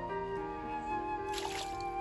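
Slow flute music, with a brief splash of water spilling from a bamboo shishi-odoshi about one and a half seconds in.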